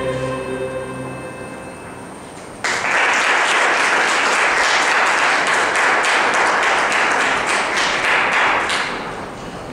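Music dies away in the first second or so. Then, nearly three seconds in, an audience starts applauding all at once, claps steadily for about six seconds and tails off near the end.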